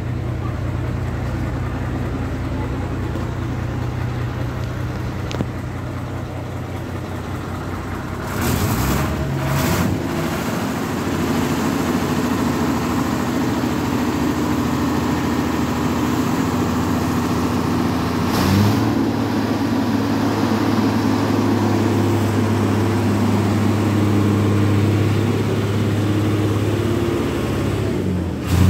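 Lanka Ashok Leyland rail bus's diesel engine running at idle, a steady drone whose note shifts about a third of the way in and again about two-thirds through, with short hisses at those changes.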